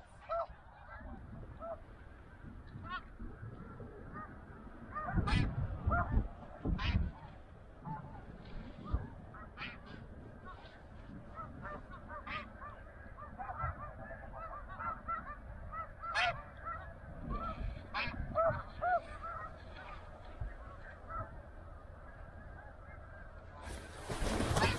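A flock of snow geese calling, many short honks overlapping on and off, with a couple of low thumps about five to seven seconds in and a burst of rustling noise near the end.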